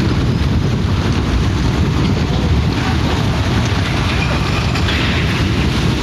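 Strong wind buffeting the microphone: a loud, steady low rumble with a rushing hiss over it.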